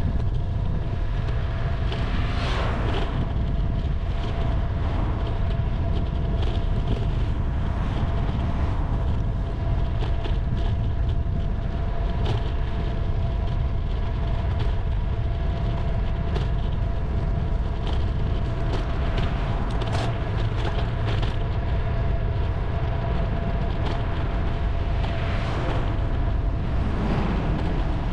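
Steady wind and road rumble from a camera carried on a moving bicycle, with traffic noise swelling about two seconds in and again near the end.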